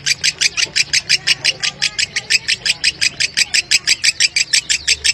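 Fischer's lovebird singing a long, unbroken chatter of rapid high notes, about eight a second: the 'ngekek' song in the dry 'konslet' style prized in lovebird keeping.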